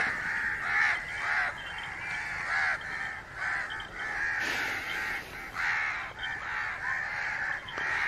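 A flock of crows cawing, many calls overlapping one after another without a break.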